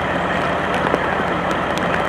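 Steady rain hiss with a vehicle engine idling underneath.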